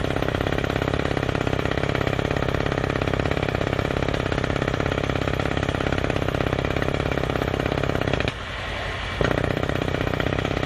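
Kaishan rock drill hammering steadily with a fast, even rhythm. It eases off for about a second near the end, then picks up again.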